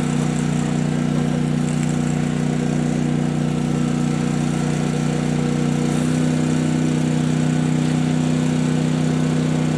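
Portable generator and air compressor running steadily, charging the air cannon's pressure system. About six seconds in, the hum's note changes slightly and it gets a little louder.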